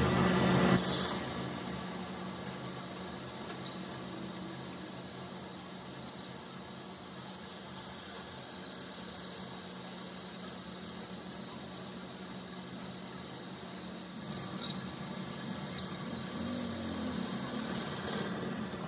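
A steady, high-pitched whistling whine that starts suddenly about a second in, holds one pitch and rises slightly just before it cuts off near the end.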